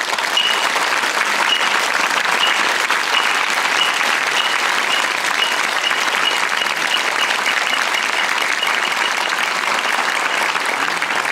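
Theatre audience applauding steadily at a curtain call, easing off slightly near the end.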